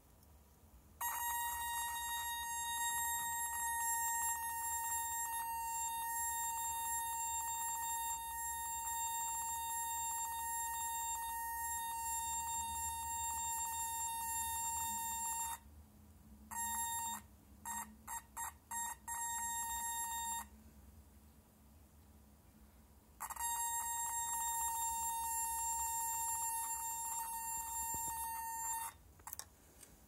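Flicker LED candle's flicker signal played through a loudspeaker: a steady, buzzy electronic tone with a weird twinkling noise behind it. About halfway through it cuts out, then returns in several short stuttering bursts, stops for a few seconds, and comes back steady until just before the end.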